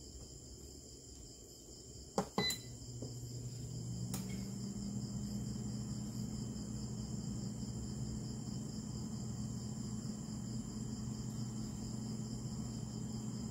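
Insects chirring steadily, crickets by the sound of it. About two seconds in come a couple of sharp clicks and a short beep, then a low electric hum from a household appliance starts and holds steady.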